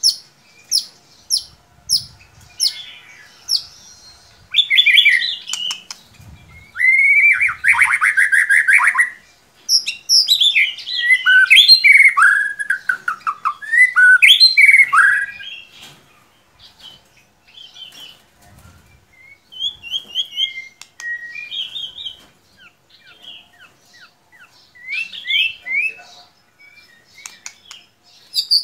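White-rumped shama (murai batu) singing a varied song: a run of sharp chirps, then loud phrases of whistles, rattles and quick falling notes, easing into softer scattered notes in the second half.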